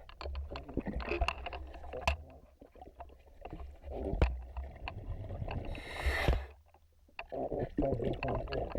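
Underwater sound of a scuba diver working along a boat hull: scattered clicks and knocks over a low rumble, with one short hiss of exhaled bubbles about six seconds in.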